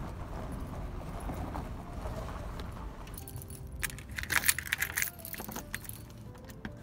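A steady low rumble of car road noise heard from inside the cabin for about three seconds, then a bunch of keys jangling and clicking as a key is pushed into a lever-handle door lock and turned.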